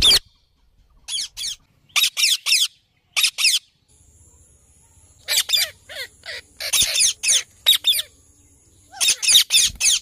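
Indian ringneck parrots (rose-ringed parakeets) giving shrill, repeated squawking calls in short bursts of a few notes, with gaps of a second or so between bursts.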